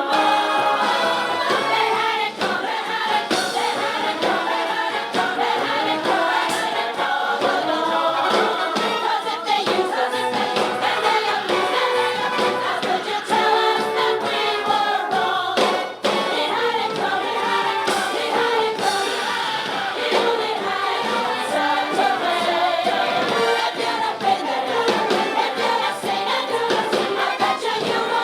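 A group of singers singing a tango-style show tune with musical accompaniment.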